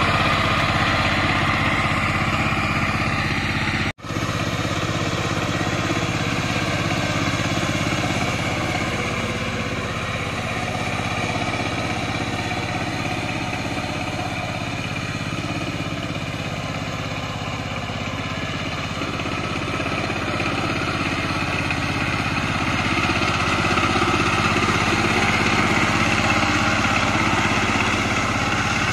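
Two-wheel power tiller's single-cylinder diesel engine running steadily while its rotary tiller churns wet, muddy soil. The sound drops out for an instant about four seconds in, grows fainter through the middle as the machine moves away, and louder again near the end as it comes back.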